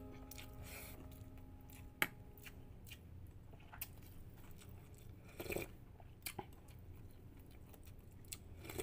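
A person eating soup and beef, chewing, with a few light clicks of a metal spoon against a bowl. A held note of background music fades out over the first couple of seconds.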